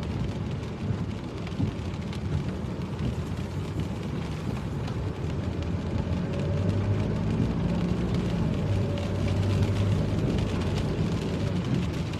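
Road noise inside a moving car on a wet road: a steady engine hum under tyre noise, getting a little louder midway.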